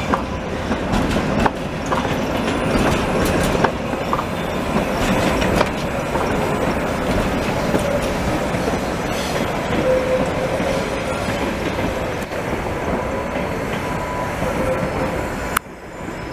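ČKD Tatra tramcars running through a curve on the tracks: a steady rolling rumble with sharp clicks of the wheels over rail joints and a thin wheel squeal that comes and goes. The sound drops suddenly near the end.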